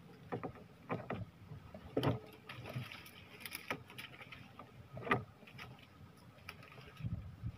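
Light knocks on a small wooden boat and rustling of leafy branches being handled from the boat, with a sharper knock about two seconds in and another about five seconds in.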